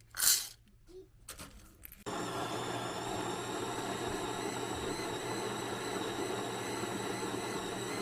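A small electric motor running steadily, starting suddenly about two seconds in, with a high, even whine over a steady hum. It is preceded by a short loud hiss about a quarter-second in.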